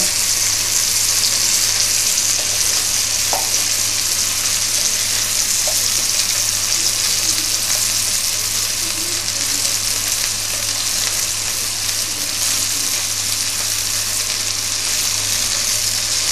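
Salmon fillet frying skin-down in a hot nonstick pan, a steady, even sizzle.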